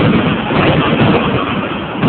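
Fireworks finale: many aerial shells bursting in quick succession, their bangs and crackling running together into a dense, continuous barrage.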